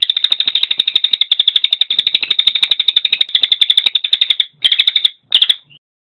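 Crested jay (cililin) giving a rapid, dry rattling call of about ten clicks a second for some four and a half seconds. It then breaks off into two short rattles near the end.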